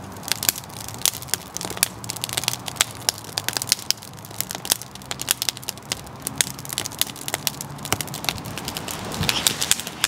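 Wood fire burning in a stainless steel box wood stove, crackling with frequent, irregular sharp pops.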